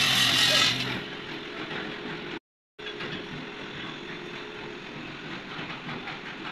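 A steady machine hum, like an engine running, louder for the first second and then quieter. The sound cuts out completely for a moment about two and a half seconds in.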